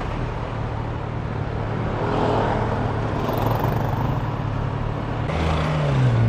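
Kawasaki Versys 1000's inline-four engine running at low speed among surrounding car traffic, heard through a microphone inside the rider's helmet. Near the end it grows louder and its pitch starts to fall.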